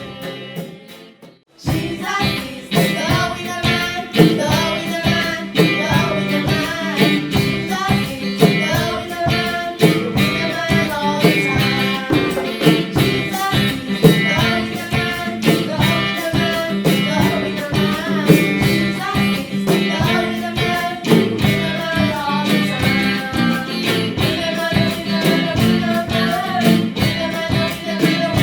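A song with singing over guitar and a steady beat, starting up after a brief pause in the first two seconds.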